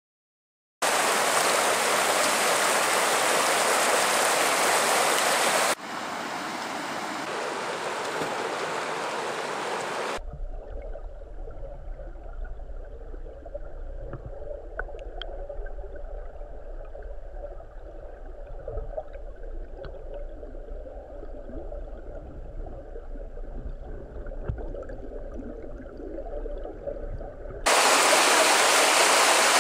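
Rushing river water, which drops in level after about six seconds. It then turns to a muffled underwater sound of the current: a low rumble with a few faint clicks. Near the end the loud rushing of the river at the surface returns.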